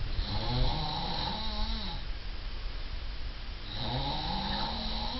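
Two long snores about three and a half seconds apart, each lasting about two seconds, with a pitch that rises and then falls.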